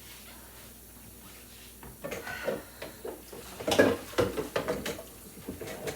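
Quiet at first, then from about two seconds in a quick run of hard knocks and clatters from kitchen things being handled and set down.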